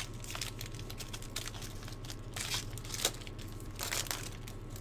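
Baseball trading cards handled by hand: a few brief soft swishes and slides of card stock as a stack is flipped through, over a steady low hum.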